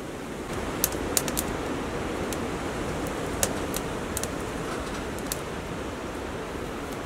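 Steady rush of strong wind buffeting the canvas tent, with a scatter of sharp, light clicks over it.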